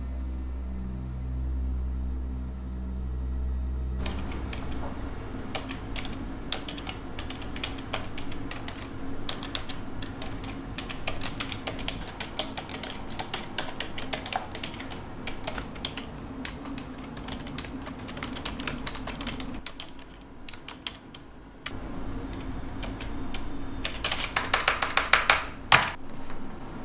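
Typing on a computer keyboard: a run of quick, irregular key clicks with a short pause about three-quarters of the way through, then a flurry of louder, faster keystrokes near the end. A low drone holds for the first few seconds before the typing begins.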